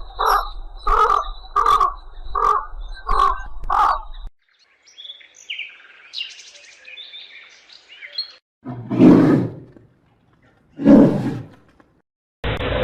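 A series of seven loud animal calls, about one every 0.6 seconds, then faint bird chirping, then two loud, deep, drawn-out calls about two seconds apart. Music starts just before the end.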